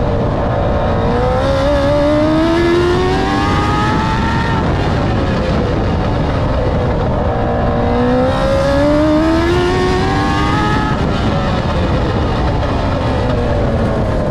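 TQ midget race car's engine at racing speed, heard onboard: its pitch climbs for a few seconds under acceleration, then drops as the driver lifts, and the cycle repeats a second time.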